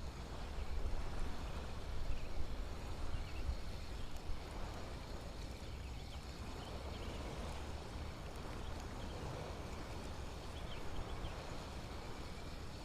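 Steady outdoor noise with a low rumble that rises and falls, heavier in the first few seconds, and a few faint high chirps.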